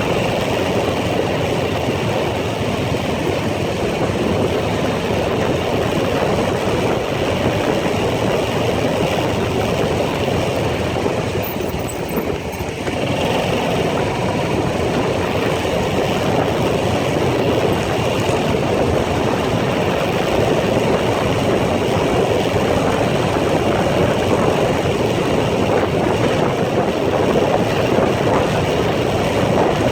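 ATV engine running steadily while riding a trail, dipping briefly about twelve seconds in.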